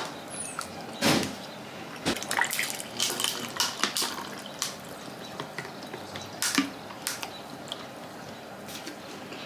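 Water poured from a plastic water bottle into a cup, splashing, among short clicks and knocks from handling the bottle.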